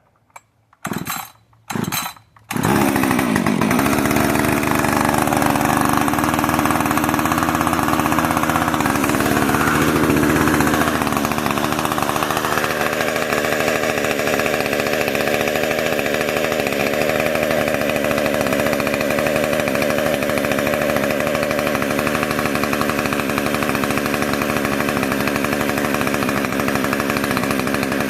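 Freshly rebuilt Husqvarna 562 XP two-stroke chainsaw starting up for its warm-up: two short bursts, then it catches about two and a half seconds in and keeps running steadily. The pitch rises and falls briefly around ten seconds in, then holds steady.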